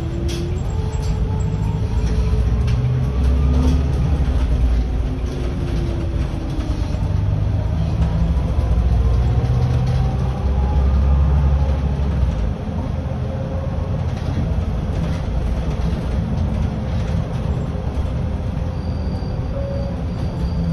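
Volvo 7900 Hybrid city bus under way, heard from the driver's cab: a heavy low rumble that is loudest between about two and twelve seconds in, with faint whines gliding up and down in pitch.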